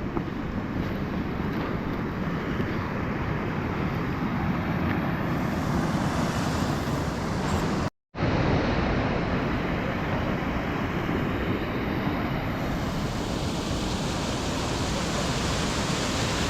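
Steady rushing of creek water. About eight seconds in it drops out to silence for a moment, where the recording is cut.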